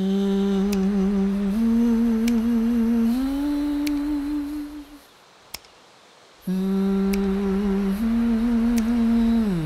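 Diatonic harmonica played with cupped hands: long held, slightly wavering notes that step up in pitch twice, then break off. After a pause of about a second and a half, a second phrase of held notes bends downward near the end.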